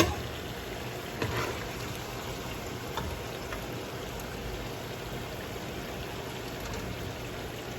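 Pork sizzling and bubbling steadily in its rendered fat in a pot, with a few light clinks of a spoon as the meat is moved to another pot.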